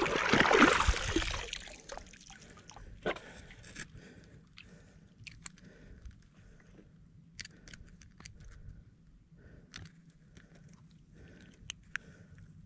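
Water splashing and sloshing loudly for about the first two seconds as a freshly caught flounder is rinsed with the camera dipped underwater. After that, faint scattered crunches and clicks of handling a fish and line.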